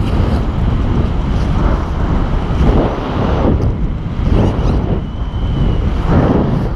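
Wind buffeting a camera microphone in free flight: a loud rushing noise, heaviest in the low end, surging and easing in uneven gusts about once a second.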